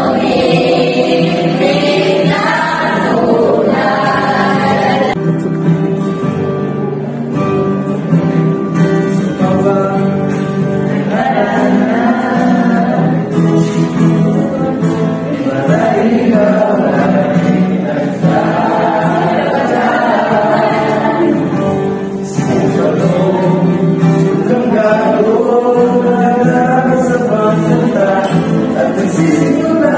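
A group of young people singing a song together, accompanied by an acoustic guitar.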